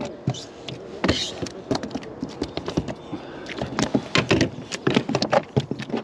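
Irregular knocks, taps and rattles on a plastic fishing kayak and tackle as a just-landed small smallmouth bass is handled aboard.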